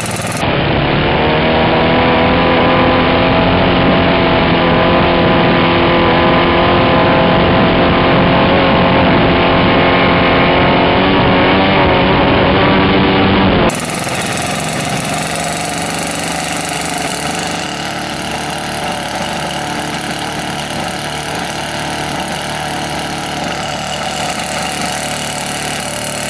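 RC model aircraft engine running steadily on the ground. About halfway through the sound changes abruptly and becomes somewhat quieter.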